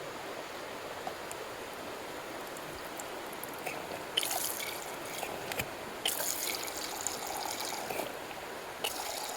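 Mountain stream running steadily, with louder bursts of hiss and small clicks about four seconds in and again from six to eight seconds.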